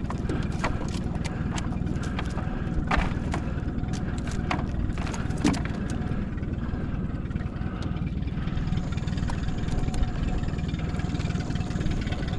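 Boat motor idling steadily, with scattered sharp clicks and taps over it.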